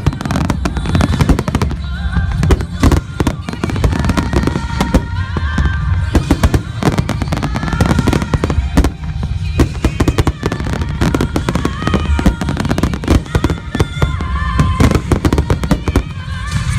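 A fireworks finale: shells bursting in rapid, irregular succession with a continuous low rumble, over music playing.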